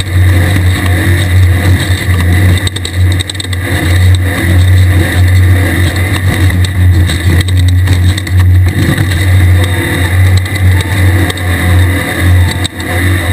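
Air-cooled 1600cc Volkswagen engine of a Class 1625 desert race buggy running hard, loud and continuous with a few brief dips in power, over frequent knocks and rattles from the chassis.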